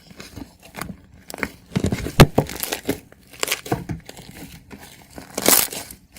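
Slime being pressed and worked by hand, giving irregular crackling, crinkling pops, with a louder drawn-out crinkle near the end.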